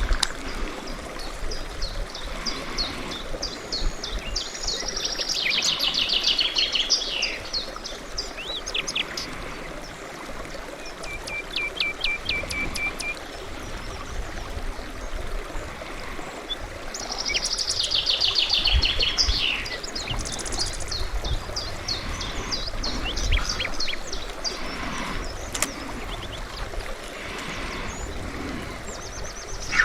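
Songbirds singing outdoors: one bird repeats a fast, high song phrase about every twelve seconds, three times, with a shorter even trill in between, over a steady background hiss.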